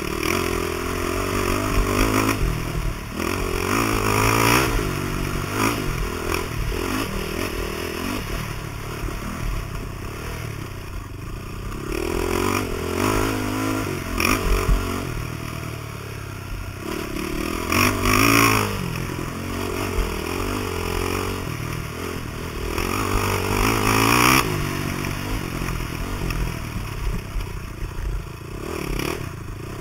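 Dirt bike engine revving, its pitch rising and falling again and again as it is ridden, with a few louder bursts of rattling and scraping noise.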